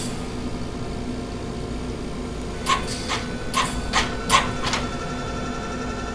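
Steady machine hum with a low rumble. A little under three seconds in, a run of about six short clicks, roughly three a second, after which faint high steady tones join the hum.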